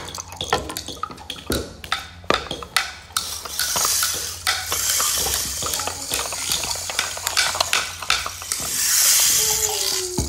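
Irregular tapping, clicking and scraping of wooden sticks on ribbed wooden and hard plastic objects, played as found-object percussion, with stretches of rushing hiss in between.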